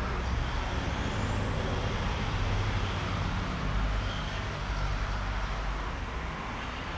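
Steady road traffic noise, a low rumble of passing vehicles that eases a little after about five seconds.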